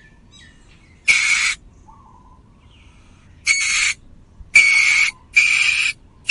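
A bird's harsh, hissing screech, repeated about five times at uneven intervals, each call about half a second long.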